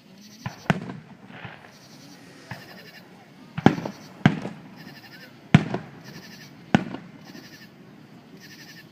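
Fireworks shells bursting overhead: five loud sharp bangs and two fainter ones spaced irregularly a second or so apart, each trailing off in a short echo.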